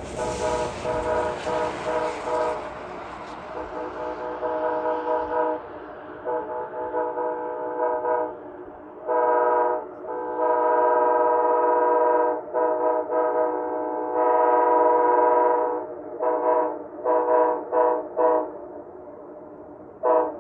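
Amtrak passenger locomotive's multi-chime air horn played as a horn show. A quick run of short toots comes first, then a few long blasts of several seconds each, then another rapid string of short toots. The rushing noise of the passing train fades over the first few seconds.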